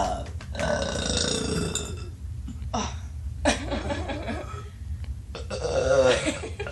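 A person belching: several long, drawn-out belches one after another, with short breaks between them.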